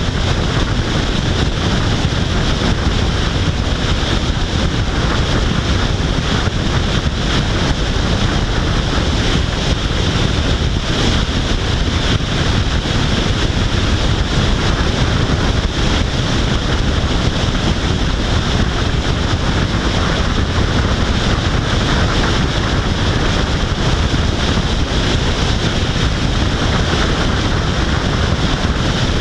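Steady, loud wind rushing over the microphone of a camera on a car driving at highway speed, with road noise from the moving car underneath.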